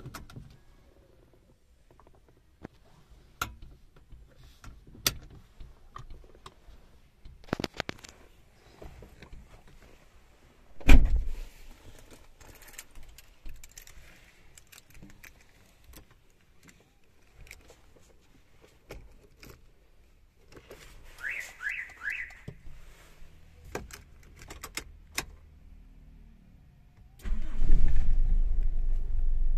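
Scattered clicks and knocks from interior trim being handled, one loud thump about eleven seconds in, and a brief jangle of keys. Near the end the Toyota Kijang LGX 1.8's four-cylinder petrol engine starts and runs steadily, heard from inside the cabin.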